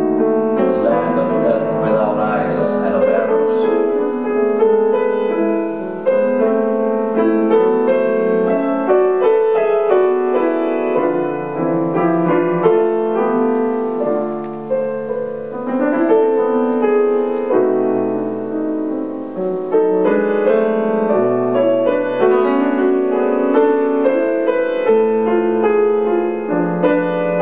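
A grand piano played solo: a continuous, shifting stream of notes and chords. A few brief high hissing sounds come through about one to three seconds in.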